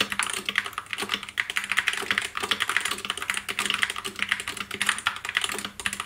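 Fast typing on a Skyloong SK61 60% mechanical keyboard with red linear switches: a rapid, continuous clatter of keystrokes, loud for a red switch.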